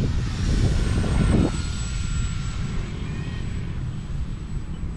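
Electric-powered foam RC plane in flight, its 3536 1200 kV motor and propeller giving a thin whine that drifts slightly in pitch as the plane moves, over a steady low rumble. It is a little louder in the first second and a half, then eases off.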